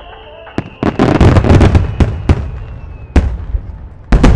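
Aerial firework shells bursting in quick succession at the climax of a starmine display: a couple of sharp bangs, then a dense volley of bangs and crackling about a second in, with more loud bangs around three seconds in and again near the end.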